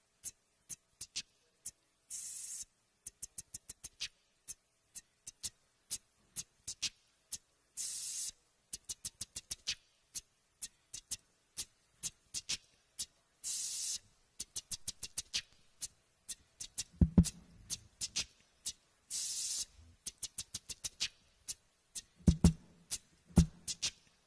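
Beatboxed vocal percussion into a microphone, layered on a live looper into a repeating groove. Sharp clicks tick in a steady pattern, with a hissing snare-like burst about every six seconds. Deep kick-drum-like thumps join about two-thirds of the way in.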